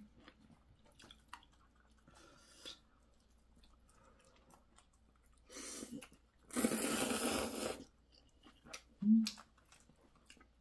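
Instant ramen noodles being slurped: a short slurp about five and a half seconds in, then a louder one lasting about a second. Soft chewing clicks around them, and a brief hum near the end.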